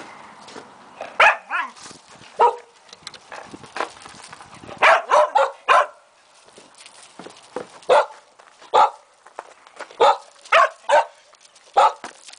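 A dog barking during play, about a dozen sharp barks in clusters of one to four, with short pauses between the clusters.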